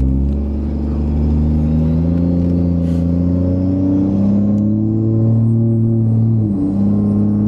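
Ram 2500's 6.7 L Cummins inline-six turbo-diesel heard from inside the cab, pulling under acceleration with its pitch slowly rising. About six and a half seconds in, the pitch dips briefly as the 68RFE automatic shifts up, then climbs again.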